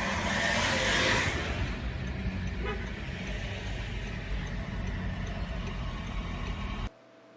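Road and traffic noise of a moving car heard from inside the vehicle: a steady low rumble, with a louder rush of noise in the first second or so. It cuts off suddenly near the end.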